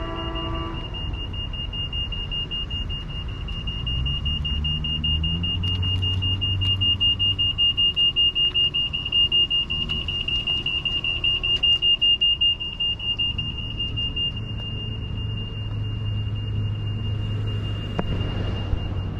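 A high-pitched tone holds throughout and pulses loudly, a few times a second, for several seconds in the middle. Under it, the low hum of a vehicle motor swells and fades as an electric baggage cart drives past.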